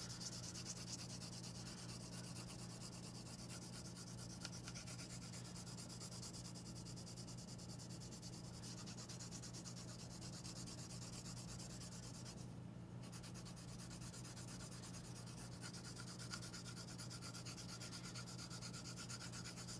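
Soft 6B graphite pencil held sideways, shading rapidly back and forth across paper in a continuous dry scratching rub, over a steady low hum.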